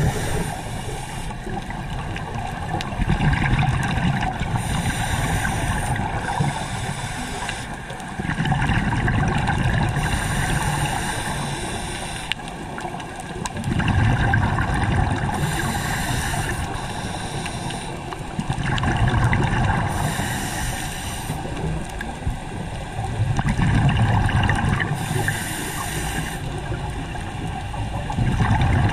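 Scuba diver breathing through a regulator underwater: a short hissing inhale, then a longer burble of exhaled bubbles, the cycle repeating about every five seconds.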